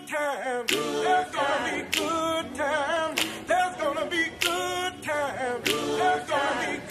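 Music: several voices singing in harmony with wavering held notes, mostly unaccompanied, over a sharp beat about every second and a quarter.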